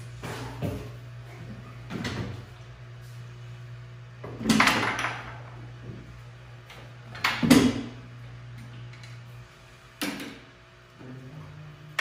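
Workshop handling noise: a series of clunks and knocks as a bucket and parts are set down and moved about on an old Bobcat skid-steer loader. The two loudest come about four and a half and seven and a half seconds in. A steady low hum runs underneath and stops about nine and a half seconds in.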